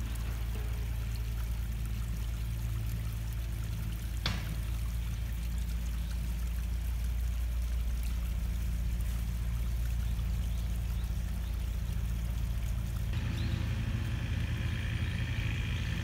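Small mountain stream trickling over rocks, under a steady low rumble; a single sharp click about four seconds in.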